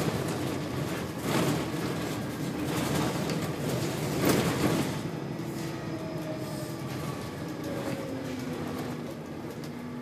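Inside a Volvo B7RLE single-deck bus on the move: steady engine and road noise, broken by two loud bursts of air hiss from the bus's air system, about a second in and again about four seconds in, the second the louder. Faint whining tones from the drivetrain come through in the second half.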